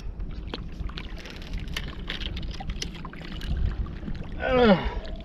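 Low wind rumble on the microphone and water around a small boat, with scattered light clicks and knocks, and a short falling vocal "oh" from a man near the end.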